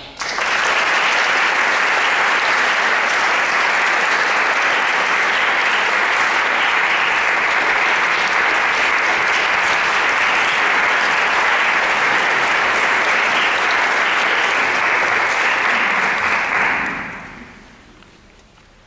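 Audience applauding steadily, starting suddenly, then dying away about three-quarters of the way through.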